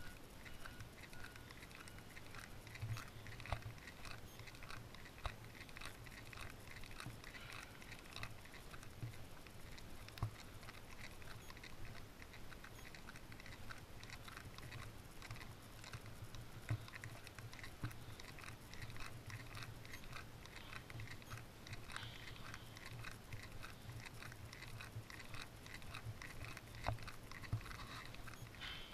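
Quiet footsteps through grass: a soft, continuous crunching patter, with a faint low rumble underneath.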